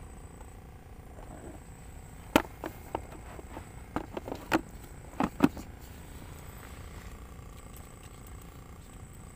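A cluster of sharp clicks and knocks as a plastic cooler box is rummaged in and its lid swung shut, the loudest about two and a half and five and a half seconds in, over a steady low background.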